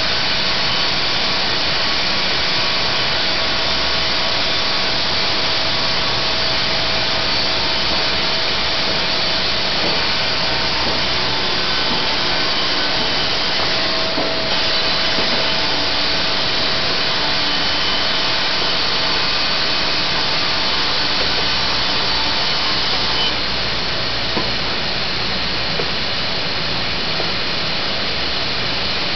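Sawmill running under load as its blade cuts lengthwise through a board, a steady, loud machine noise with a faint whine. About two-thirds of the way through it drops slightly in level.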